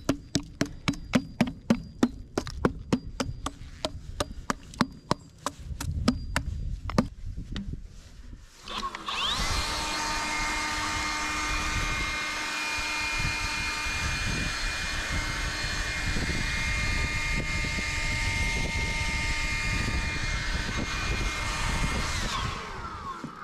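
A rapid series of sharp taps for about seven seconds, then a yellow cordless drill spinning up and running steadily for about thirteen seconds with a long bit boring down through a wooden top plate, winding down near the end.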